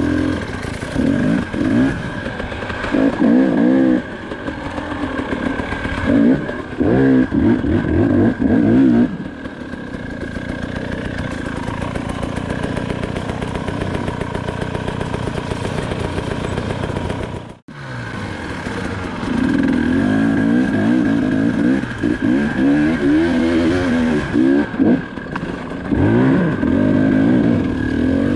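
KTM 300 XC-W two-stroke single-cylinder enduro engine revving in repeated throttle bursts, its pitch rising and falling as it works over rough trail, with a steadier stretch in the middle. About two-thirds of the way through, all sound drops out for an instant.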